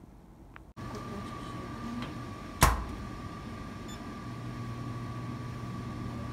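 Book sterilizer running: a steady machine hum with a thin high whine, starting just under a second in, with one sharp click about two and a half seconds in.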